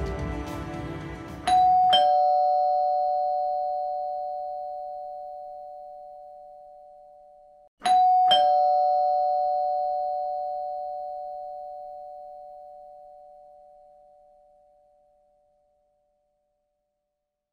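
Two-note doorbell chime, a high 'ding' then a lower 'dong', rung twice about six seconds apart, each ring fading slowly away.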